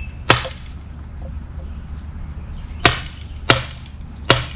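Four sharp hammer blows on a block of wood held against the front cover of a Joyner Spyder 650 engine, knocking the cover loose from the block. One blow lands early, then three come closer together near the end.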